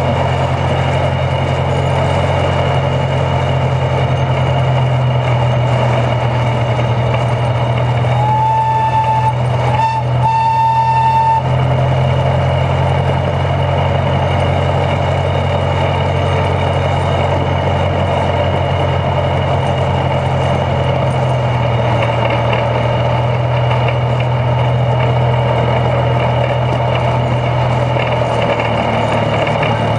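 Two-foot gauge geared locomotive running along its track: its internal-combustion engine drones steadily, with the driveshaft and wheels rolling over the rails. About eight seconds in a horn toots twice, a short note and then a slightly longer one.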